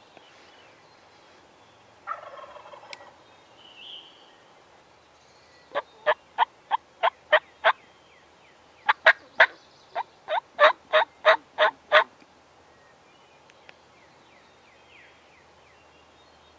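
Wild turkey calling: a short, rough call about two seconds in, then two runs of loud, evenly spaced hen yelps at about three a second, the first of about seven notes and the second of about ten.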